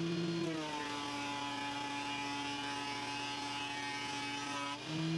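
A small electric motor running with a steady whine that drops in pitch about half a second in, holds lower, and rises back near the end.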